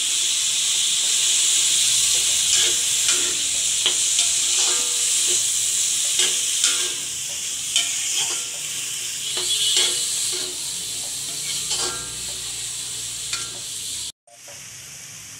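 Ridge gourd cubes and ground masala frying in hot oil in a metal kadhai, sizzling steadily while a spatula stirs them, scraping and clicking against the pan again and again. The sound cuts off abruptly shortly before the end.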